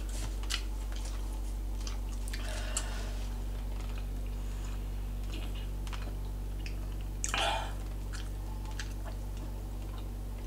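Quiet eating sounds at a table: scattered small clicks of cutlery and chewing, with a brief louder noise about seven seconds in while a drink is swigged from a carton, over a steady low hum.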